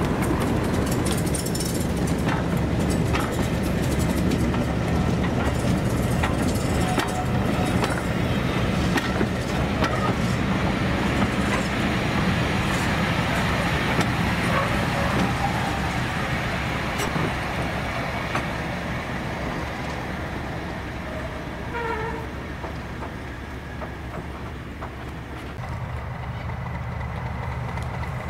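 Diesel locomotive engine running steadily, with sharp clicks over the first dozen seconds, growing quieter in the second half.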